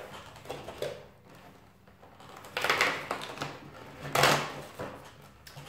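Cardboard and packaging handled as a product is pulled out of an advent calendar compartment: rustling and scraping noises, the loudest about two and a half seconds in and again about four seconds in.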